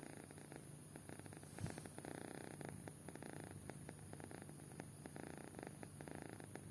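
Sleeping kitten snoring: a faint, purr-like rumble that swells and fades with each breath. There is a short soft bump about a second and a half in.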